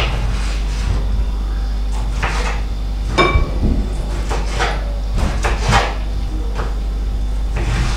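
Kitchen knife slicing tomatoes on a bamboo cutting board: irregular knocks of the blade against the board, with one brief ringing clink a little past the middle, over a steady low hum.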